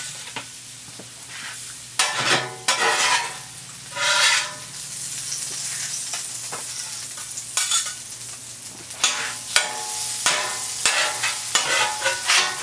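Food sizzling on a hot Blackstone flat-top griddle, with repeated sharp scrapes of a metal spatula across the steel cooktop, thickest near the end.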